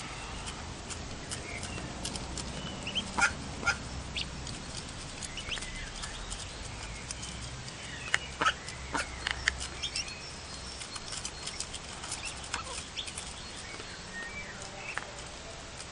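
A group of ducklings feeding from a plate: quick, irregular taps and clicks of bills pecking at the feed and the plate, with short high peeps among them. A few louder sharp sounds come about three seconds in and again around eight to nine seconds.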